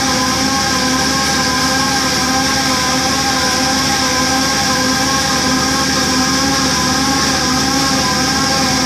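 Line boring machine running steadily, its boring bar turned by a pneumatic air motor while cutting through an engine block's main bearing bores. It makes an even hum with several fixed tones over a constant air hiss.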